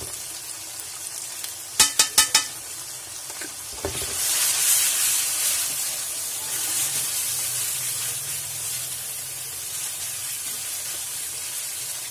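Onions and garlic paste frying in hot oil in an aluminium karahi, sizzling steadily. About two seconds in there are four quick metal clinks. Then the sizzle swells loud as red chilli powder is stirred into the oil, and it settles back to a steady sizzle under the stirring.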